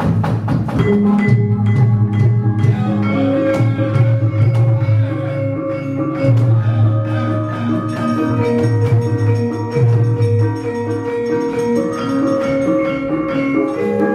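Javanese gamelan orchestra playing, with bronze metallophones ringing out note after note over low held tones. It opens with a few sharp clacks from the puppeteer's keprak.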